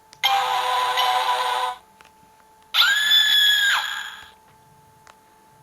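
Two short recorded sound effects played through the small electronic speaker of a 'Play-a-Sound' children's book, each about a second and a half long, with a pause between them. The second is more tone-like and steadier in pitch than the first.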